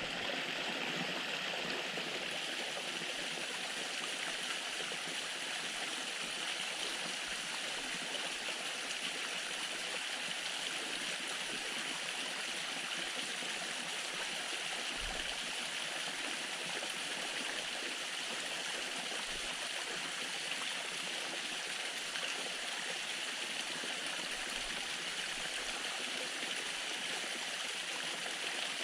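Small waterfall running with a steady, even rush of falling water.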